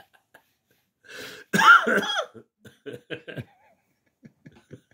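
A man laughing: one loud outburst about a second and a half in, then a run of short laughs that fade away.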